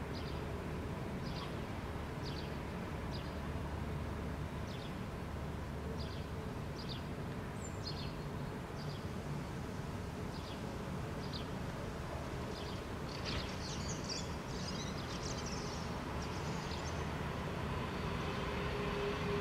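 Steady low rumble of distant traffic, with a small bird giving short high call notes about once a second. About 13 seconds in, a busier run of higher chirps lasts a few seconds.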